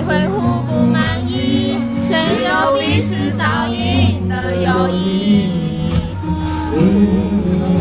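Male pop singer singing a slow ballad live into a handheld microphone over steady backing music, heard through a concert sound system.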